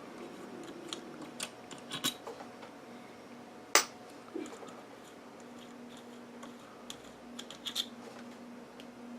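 Scattered small clicks and taps of hand tools and small metal parts being handled, with one sharper click about four seconds in, over a faint steady hum.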